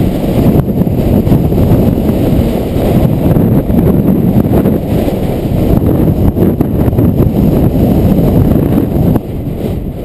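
Strong typhoon wind buffeting a GoPro action camera's microphone: a loud, gusting rumble that eases briefly about nine seconds in.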